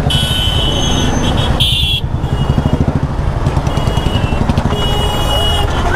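Motorcycle engine running at low speed in slow, jammed traffic. Short high-pitched beeps from surrounding vehicles sound several times over it.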